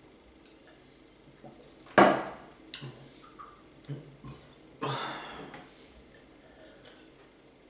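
A man drinking orange soda from a glass: a sudden loud sound about two seconds in, fading over half a second, and a second, longer one about five seconds in, with a few small knocks between them.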